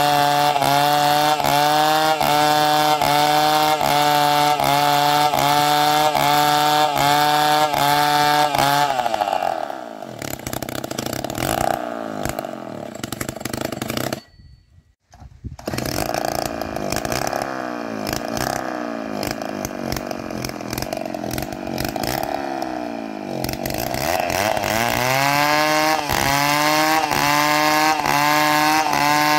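A small engine running at high speed with a regular wavering in pitch. About a third of the way in it drops to a lower, uneven speed, goes almost silent for a second or so near the middle, then climbs back up to high speed near the end.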